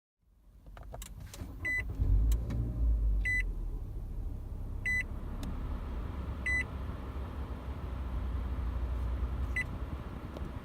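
Nissan Altima's dashboard warning chime sounding four times about every second and a half, then once more faintly, over the low steady rumble of the car's engine, with a few clicks near the start.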